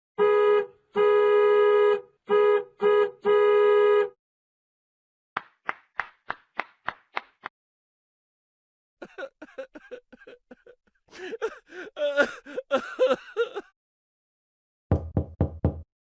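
A run of separate comedy sound effects with short silences between them: a horn-like honk sounded five times in an uneven short-long rhythm, then about eight quick sharp clicks, then a jumble of short wavering squeaky sounds, and five quick low thuds near the end.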